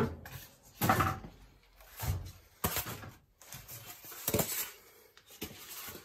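Polystyrene packing corners being pulled off and handled, rubbing against plastic wrap, in a series of irregular scrapes and knocks.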